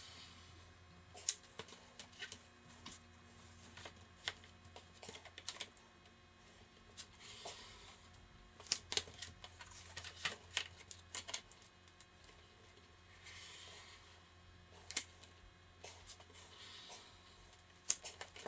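Scattered light clicks and taps with a few short scraping strokes: a hand cutter being worked on mat board from the back, making cuts.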